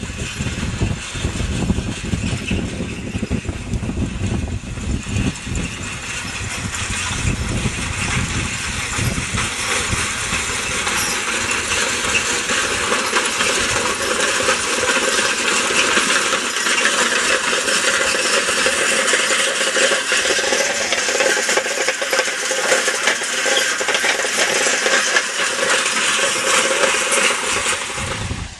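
Horse-drawn hay rake and forecart rattling and clinking, a steady busy metal-on-metal jingle of tines and fittings as the team pulls it through the hay, louder as it comes close. Wind rumbles on the microphone in the first several seconds.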